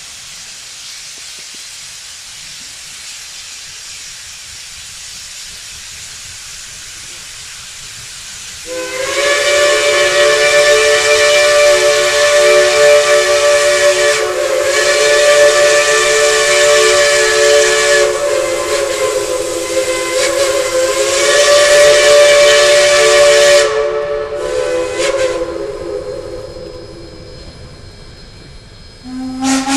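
A steady hiss, then about nine seconds in the steam whistles of Shay geared steam locomotives open up together in a loud chord of several notes, held for about fifteen seconds with brief dips. They trail off in short toots, and another whistle opens on a lower note right at the end.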